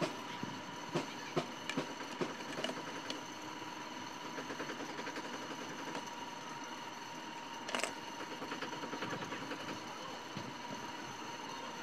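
Light clicks and taps of hands handling the opened plastic blender base and its wiring, several in the first few seconds and a louder one about eight seconds in. Underneath runs a steady high-pitched background hum, and twice a faint fast rhythmic mechanical chatter.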